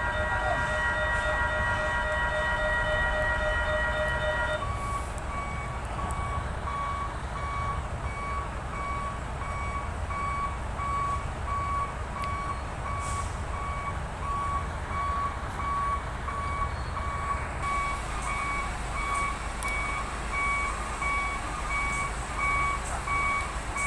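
A steady chord of several held tones sounds and stops abruptly about four and a half seconds in. From then on, a truck's reversing alarm beeps evenly over the low rumble of heavy truck engines.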